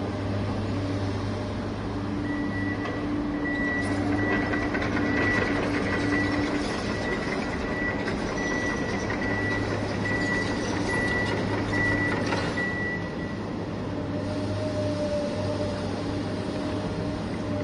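Radio-controlled construction machine running with a steady motor hum, while a reversing beeper sounds an even series of high beeps from about two seconds in until about four seconds before the end.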